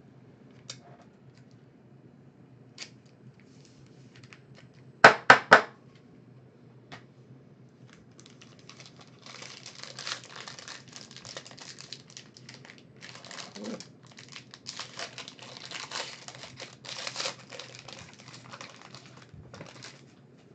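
A foil trading-card pack wrapper being torn open and crinkled, a dense crackling rustle through the second half. Earlier come three sharp knocks in quick succession, the loudest sounds.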